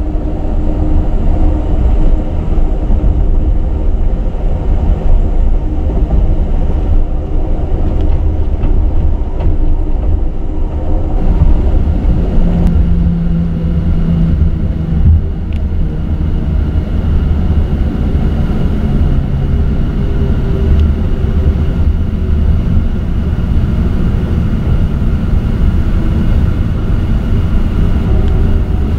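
Steady low rumble of the Amtrak Southwest Chief passenger train running at speed, heard from inside the car: wheels on the rails and the car body's drone. A brief low hum rises out of it about halfway through.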